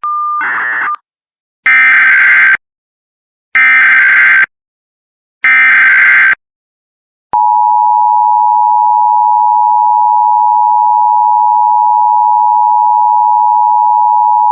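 Emergency Alert System activation tones. A short beep opens it, then come three sub-second bursts of SAME digital header data, each about a second apart, and about seven seconds in the steady two-tone EAS attention signal starts and holds.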